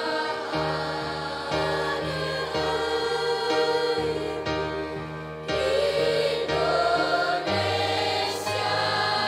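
Children's and youth choir singing an Indonesian national song in parts, over low accompaniment notes that change about once a second.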